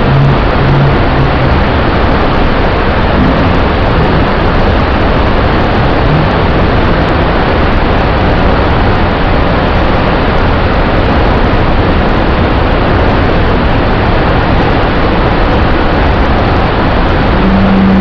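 Waterfall in heavy flow, a large volume of muddy water pouring over rock and crashing below, making a loud, steady rushing sound.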